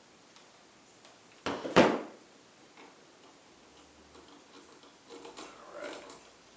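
Two sharp knocks in quick succession about a second and a half in, followed later by light clicks and rustling: tools and workpiece being handled and set down on a workbench.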